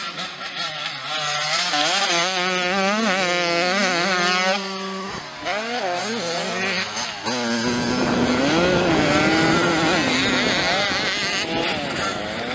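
Motocross bike engines revving hard on track, their pitch rising and falling with the throttle, several bikes overlapping at times. The sound changes abruptly twice, as one shot of a passing bike gives way to another.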